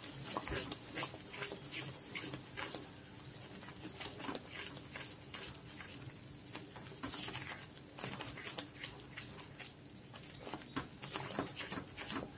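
Spatula stirring a thickening palm-jaggery halwa batter in a non-stick pan: soft, irregular wet slaps and scrapes with many short ticks.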